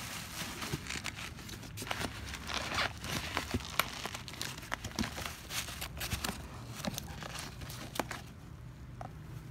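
Corrugated cardboard box being torn open by hand, with bubble wrap crinkling as it is handled: a run of irregular crackles and snaps that eases off near the end.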